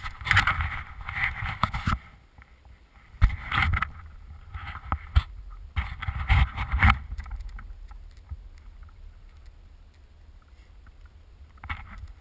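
Skis swishing through snow in several bursts over the first seven seconds, then quieter, with a few sharp knocks and a steady low rumble of wind on the camera microphone.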